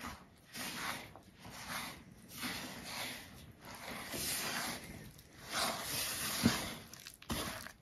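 Wet biscuit dough of cornmeal, oil, milk and eggs being stirred in a mixing bowl, in repeated strokes about once or twice a second, with one sharper knock about six and a half seconds in.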